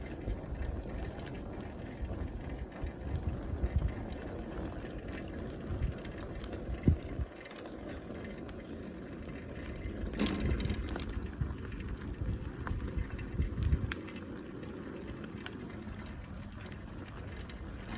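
Bicycle being ridden, with wind buffeting the microphone in uneven gusts, and a few sharp clicks or rattles about ten seconds in.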